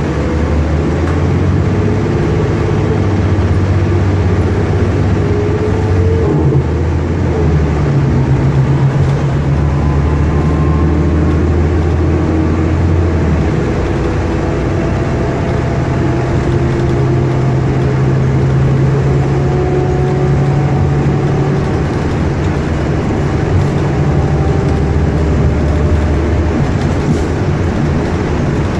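Inside the passenger cabin of a 2012 New Flyer Xcelsior XN40 CNG bus with a Cummins Westport ISL G engine and Allison B400R automatic transmission, heard under way: the engine running steadily with a faint whine that slowly climbs, and the low engine note stepping in pitch a couple of times.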